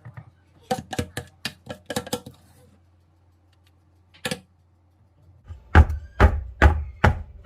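Kitchen knocks and clatters of utensils and cookware: a quick run of light taps and clinks about a second in, one lone knock in the middle, then five or six heavier thuds, about two a second, near the end.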